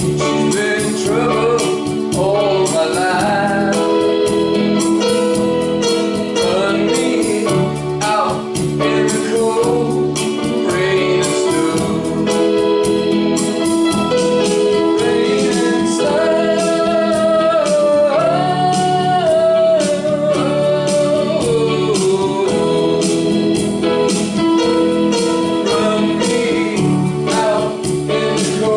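Rock band music with a sung vocal line over organ and drums.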